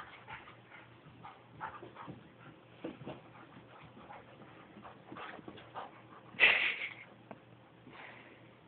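A Border Collie and a Parson Russell Terrier play-fighting: scattered short dog noises, with one louder noise about six and a half seconds in.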